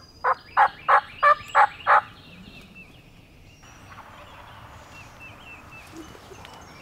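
A series of about seven turkey yelps, loud and evenly spaced about three a second, that stop about two seconds in. Faint chirps from small birds follow.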